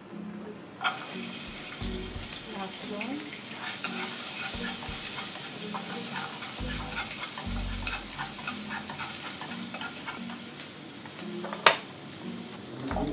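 Green pepper strips sizzling in a hot oiled wok, stirred with chopsticks that click against the pan. The sizzle starts up about a second in, and a sharp tap on the wok comes near the end.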